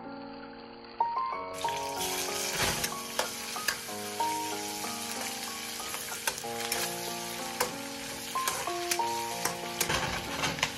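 Food sizzling in a hot wok as a metal spatula stirs and tosses it, with frequent sharp scrapes and taps of the spatula on the pan. The sizzle sounds muffled for about the first second and a half, then comes in fully. Background music with held notes plays over it.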